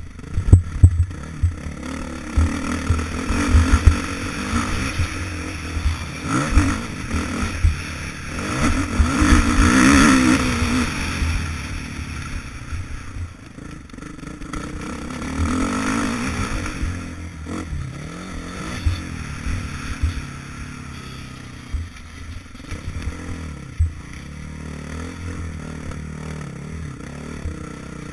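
Motocross bike engine, heard from a helmet-mounted camera, revving up and down as the bike is ridden round the track, loudest about ten seconds in and again a little after fifteen. Frequent short low thumps run through it.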